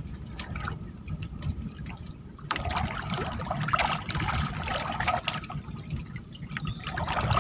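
Water splashing and trickling, with many small drips and clicks, louder from about two and a half seconds in.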